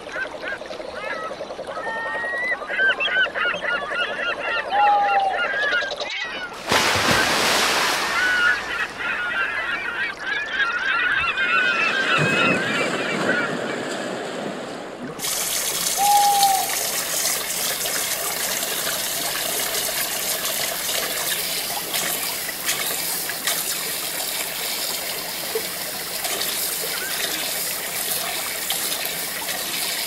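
Whitewater rapids rushing over rocks, a steady noise through the second half. In the first half there is a busy chatter of many overlapping short calls above the water noise, and it changes abruptly twice.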